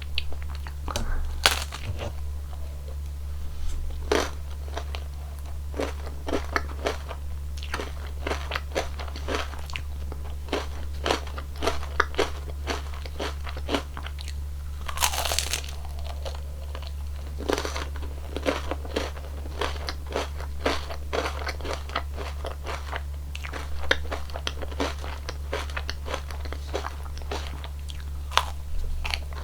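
Close-miked crunching and chewing of a cone ice cream, its wafer cone cracking in many small crisp snaps, with a longer crackling burst about halfway through.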